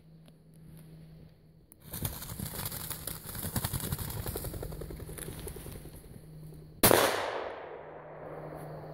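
Heather and brush rustling and crackling from about two seconds in as the dog and the filmer push through it. About seven seconds in comes a single loud gunshot that rings out and fades over about a second.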